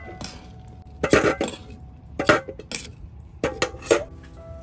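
A run of sharp clinks and knocks from metal cookware being handled, with several close together about a second in and again near the end.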